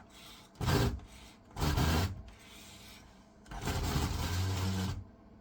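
Three bursts of rubbing, scraping noise on a keyboard as it is cleaned of dust: a short one, a slightly longer one about two seconds in, and a longer one of about a second and a half near the end.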